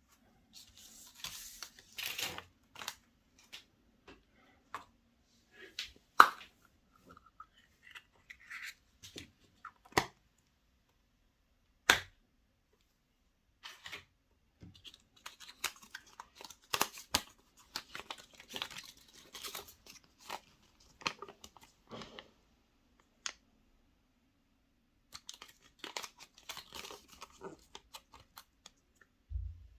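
Foil wrappers of chocolate surprise eggs crinkling and tearing in irregular clusters, with a few sharp single clicks in between.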